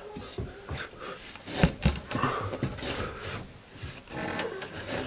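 Irregular knocks, clicks and scraping as something is worked up through a small hole in the ceiling and bumps against what seems to be a wooden stud. The loudest knocks come a little under two seconds in.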